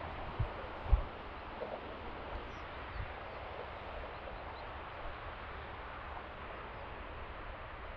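Steady outdoor background noise with a few short, dull low thumps, the loudest about a second in.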